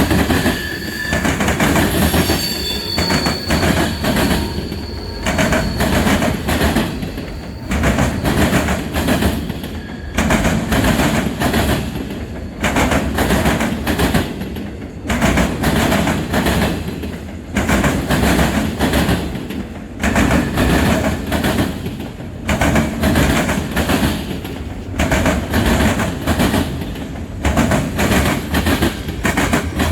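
Freight train cars rolling past, wheels clacking over rail joints in a repeating rhythm under a steady rumble. A thin, high wheel squeal sounds for the first few seconds.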